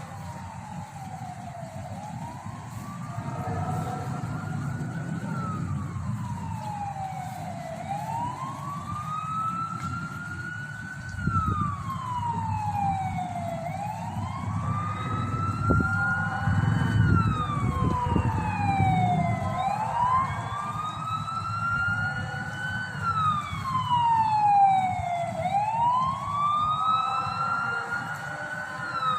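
Siren-like wail over a school loudspeaker system, its pitch slowly rising and then falling in a repeating cycle of about six seconds, five times over, with a low rumbling noise underneath.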